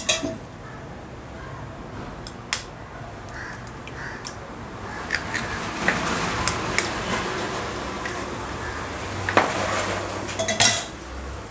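Clinks and sharp taps of a spoon and eggshells against a stainless steel tumbler as eggs are cracked into it, with a dense run of taps in the middle and a loud cluster of clinks near the end.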